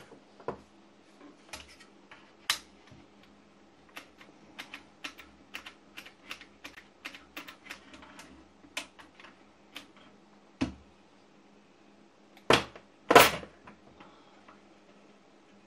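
Irregular light clicks and taps, a few a second, from working a hot glue gun and pressing small electronic parts into a record player's case, with two louder knocks near the end.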